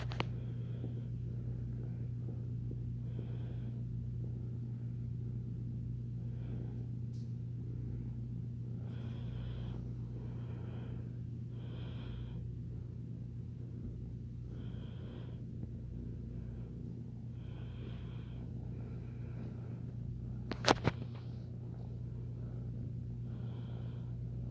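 Kitten purring steadily while being stroked, with soft snuffly breaths every second or two. A single sharp click about twenty seconds in.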